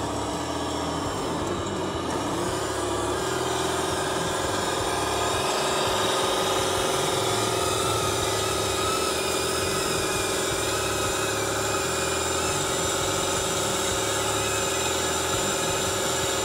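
RC log truck's engine sound, a steady diesel-truck engine note that shifts briefly and settles to an even pitch about three seconds in as the truck crawls through mud.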